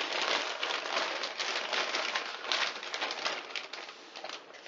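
Plastic zip bag crinkling and rustling as coarsely crushed walnuts are shaken out and scattered onto cake batter, a dense patter of small clicks that eases off near the end.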